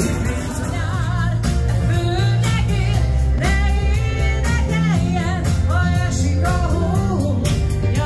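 Live dance band playing a song: a singer's voice over a steady drum beat and bass.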